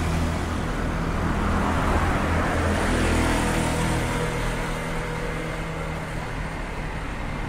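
Road traffic passing close by, cars and motorbikes running along the street: a steady low engine hum with a swell of engine and tyre noise about two to three seconds in.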